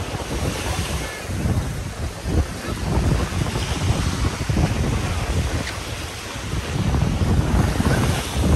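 Wind buffeting the microphone in uneven gusts, over the steady wash of surf on a beach.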